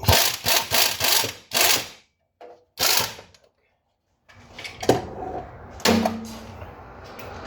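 A wrench on a long extension working transmission bolts, in several loud rattling bursts, with sharp metal clanks later on.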